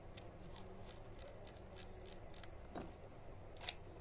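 Faint handling of a Nikon D5000 DSLR body in the hands: light rubbing and small ticks, with a soft knock near the end and one sharp click just before the end.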